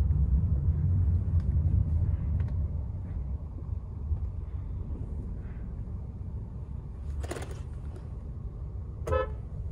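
Car cabin noise while driving: a steady low road and engine rumble, with a brief rushing sound about seven seconds in and a short pitched sound near the end.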